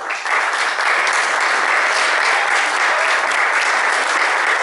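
Audience applauding: a dense, steady round of clapping from many hands that breaks out right at the start.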